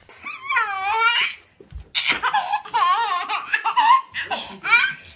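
Baby laughing in high-pitched, squealing giggles, in three bouts with a stuttering rhythm in the middle one.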